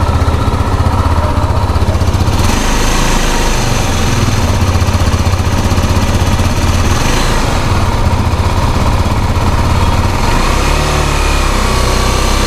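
KTM Duke 390's single-cylinder engine running steadily at idle, with no cam chain rattle now that a new cam chain tensioner has been fitted.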